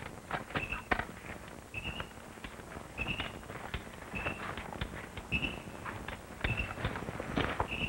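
Footsteps and twigs crackling as people move through undergrowth, with sharp irregular snaps. Under them a small animal's short, high chirp repeats about once a second.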